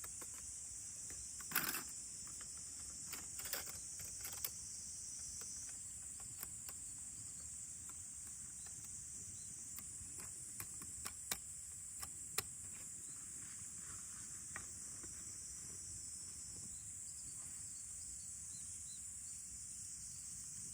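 Steady high-pitched drone of summer insects, with scattered sharp clicks and knocks, the loudest about a second and a half in and a cluster of them near the middle.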